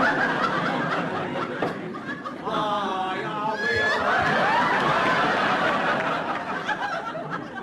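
Studio audience laughing, the laughter swelling about halfway through.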